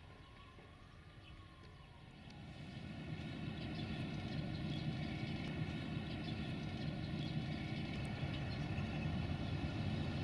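An approaching Softronic Transmontana (class 480) electric locomotive. Its low rumble builds steadily from about three seconds in.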